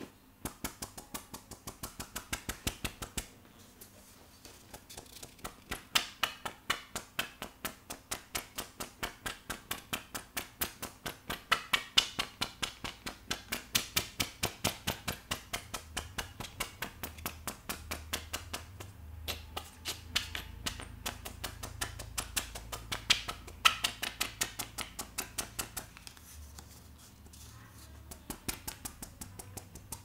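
Bristle scalp-massage brush worked rapidly over hair and scalp: quick, crisp scratching strokes at about five a second, in runs with short pauses.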